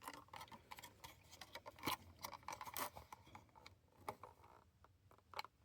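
Faint, irregular small clicks and scrapes: a thin piece of plastic being worked under the hood of a die-cast Subaru WRX model car to pry it open, with a few sharper clicks about two and three seconds in.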